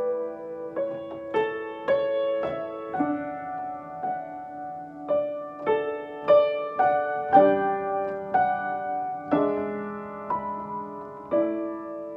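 Upright piano played solo at a slow pace: chords and single notes struck about once or twice a second, each ringing and fading before the next.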